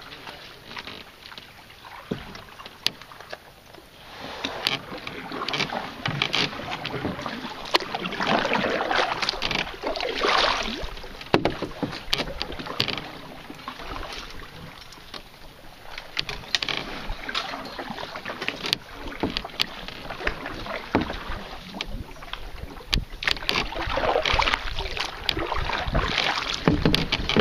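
Paddle strokes in calm creek water: swishing and splashing that swell and fade every few seconds, with occasional sharp clicks.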